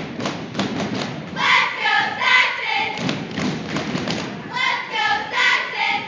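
Cheerleading squad shouting a cheer in unison, two chanted phrases about three seconds apart, over a run of rhythmic thumps.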